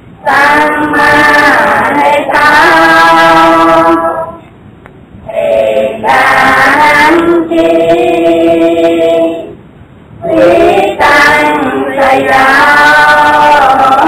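Devotional singing in long, slow held notes, sung in three phrases with short breaks about four and ten seconds in.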